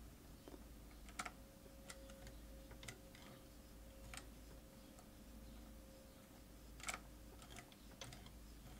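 Juki DDW-9A industrial sewing machine turned slowly by hand: faint, irregular clicks and ticks from the mechanism as the needle and rotary take-up cycle, the clearest click about seven seconds in.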